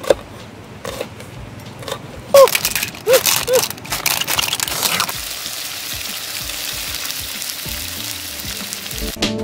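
A heavy knife chopping red chillies on a wooden board in a few sharp taps, then a loud clatter of cockle shells tipped out of a woven basket, then cockles sizzling steadily in a hot wok. Music comes in near the end.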